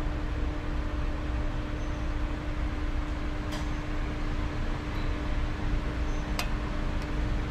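Steady machine hum, like a shop fan, under two light metallic clicks about three and a half and six and a half seconds in, the second louder, as a cotter pin is worked through the nut lock on a CV axle nut.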